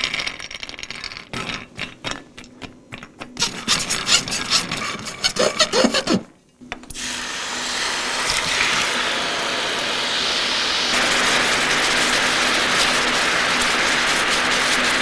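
Hazelnuts rattling and scraping against a nonstick pan as they are stirred with a spoon. After a short break, a hot pan sizzles steadily, and the sizzle grows louder as liquid goes in and peach halves cook in it.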